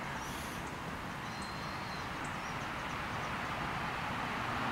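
Steady hiss of passing road traffic, a car swelling louder toward the end, with a few faint high bird chirps in the first half.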